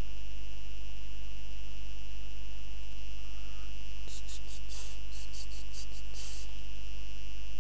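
Steady electrical hum with a thin high whine, the noise floor of the recording setup. Around four to six seconds in comes a quick run of about eight light ticks.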